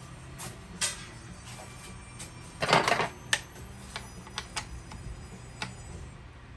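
Irregular clicks and clacks of small hard parts being handled, with one louder rattling clatter about two and a half seconds in.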